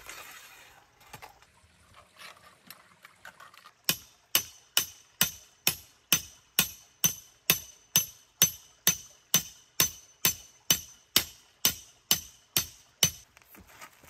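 A steady, even series of sharp, ringing metallic ticks, about two and a half a second, starting about four seconds in and stopping shortly before the end.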